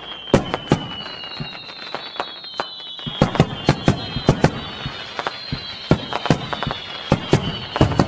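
Fireworks going off in quick, irregular bangs, several a second. Behind them, high whistles glide slowly downward.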